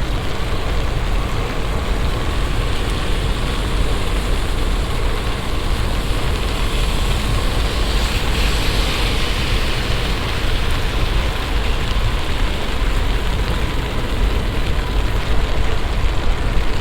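Heavy summer shower falling steadily, the rain's hiss swelling for a few seconds around the middle over a constant low rumble.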